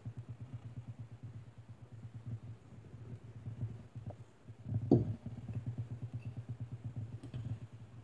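Metal fork and spoon clinking lightly against each other and the plate while spaghetti is twirled, a few scattered clicks, with one louder scrape about five seconds in.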